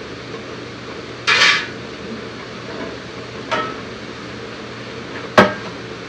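Metal woks and pots clanking against a gas range and counter: a short scraping clatter about a second in, a lighter clank in the middle, and a sharp, loud clank near the end, over a steady background hum.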